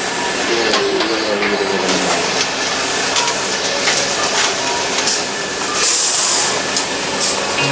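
A train running on the rails: a steady noise of wheels and running gear with a few light knocks from the track.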